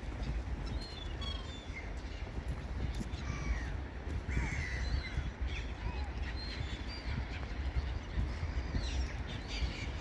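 A flock of gulls calling, many short harsh cries overlapping and scattered throughout, over a steady low rumble.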